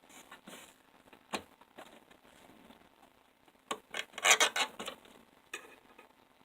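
Hard objects handled at close range: a single click about a second in, then a burst of clattering and rattling around four seconds in, and one more click near the end.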